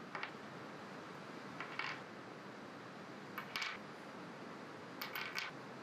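Small stainless steel cable railing fittings, pivot eyes and swage studs, clicking and clinking faintly as they are threaded together by hand and set down on the table, in four short bursts of clicks.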